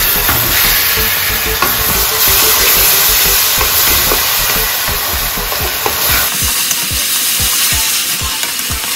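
Chopped onions and ginger-garlic paste frying in hot mustard oil in a kadhai, sizzling steadily while a wooden spatula stirs and scrapes them around the pan.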